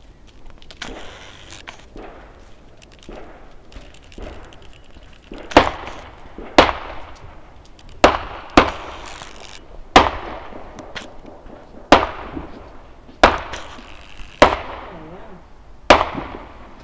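Fireworks exploding overhead: a string of about nine loud bangs starting about five seconds in, one to two seconds apart, each followed by a fading echo.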